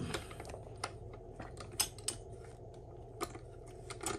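Scattered light metallic clicks and clinks, irregularly spaced, as a shift-fork and shift-rail assembly is worked into place inside a Honda B-series transmission case.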